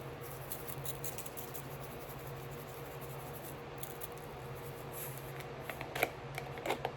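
Seasoning shaken from a shaker over raw meat: scattered light clicks and ticks, a few sharper ones about six seconds in, over a steady low hum.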